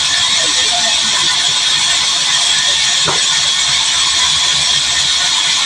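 Sawmill band saw running with a loud, steady, high-pitched noise as timber is fed through the blade, with a brief rising squeak about three seconds in.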